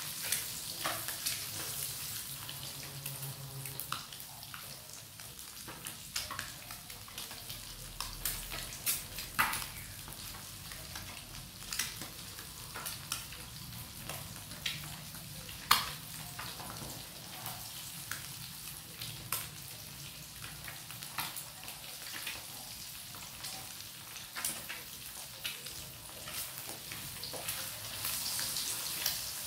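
Batter-coated quail eggs frying in hot oil: a steady sizzle with scattered sharp pops and crackles.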